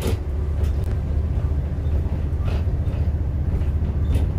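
Steady low engine and road rumble of a bus, heard from inside while riding, with a few brief clicks or rattles over it.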